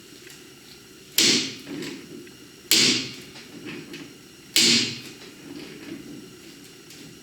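Three loud, sharp bangs about a second and a half to two seconds apart, each dying away quickly, with softer knocking between them.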